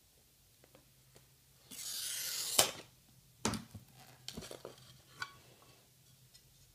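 A glass cutter's wheel scoring a sheet of glass along a strip-cutting rail: a steady high hiss for about a second, ending in a sharp click. Then a few knocks and light clinks as the glass is handled.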